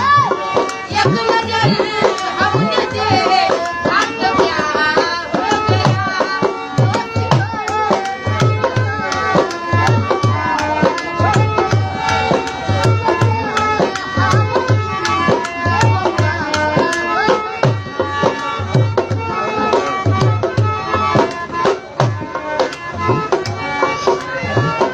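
Music with a steady hand-drum beat, deep strokes about twice a second, under a stepping melody line.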